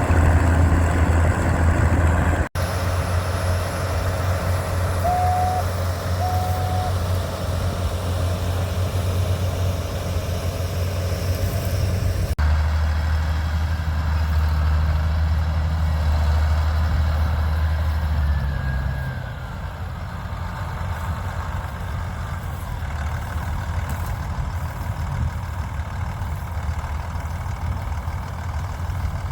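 Tractor engines running steadily with a deep low hum, in shots cut together abruptly twice. Two short high beeps come a few seconds in, and the engine becomes quieter about two-thirds of the way through.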